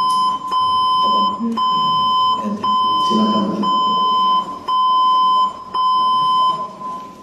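Electronic beeping: a loud, steady mid-pitched tone broken by short gaps about once a second, with a man's voice faintly underneath. The tone stops near the end.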